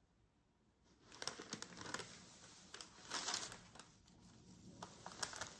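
Faint paper-towel crinkling and rustling with light clicks, coming in bursts after about a second of near silence, loudest about a second in and again around three seconds in.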